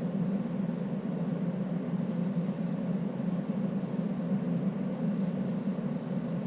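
Electric heater for the enclosure running, a steady low whir with no changes.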